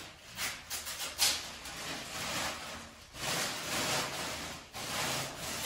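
Thin plastic drop sheet crinkling and rustling in irregular swishes as it is pulled up off the floor and bunched together.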